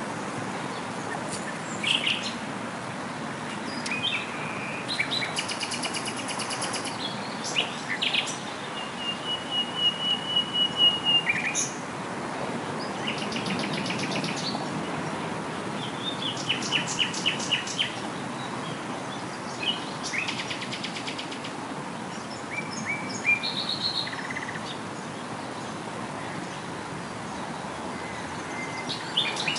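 Several songbirds singing and calling in turn, short phrases and rapid trills, with one long level high note about nine seconds in, over a steady background hiss.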